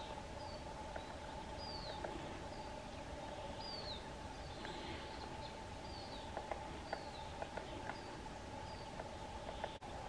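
Wild birds calling in short, high, falling chirps, about one a second. Irregular sharp taps come mostly in the second half, from the great spotted woodpecker pecking at the spruce trunk.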